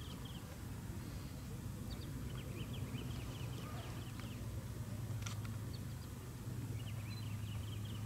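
Steady low hum of an idling vehicle engine, with short bursts of small birds chirping over it on and off and a sharp click about five seconds in.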